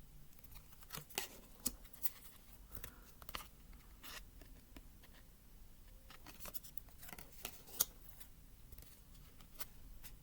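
Tarot cards and their card-and-paper packaging being handled by hand: irregular light clicks, taps and soft paper rustles, with the sharpest click near the end.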